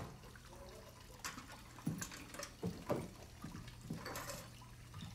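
Water splashing and dripping in a tiled bathroom, in irregular short splashes with a longer splash about four seconds in, over a low steady hum.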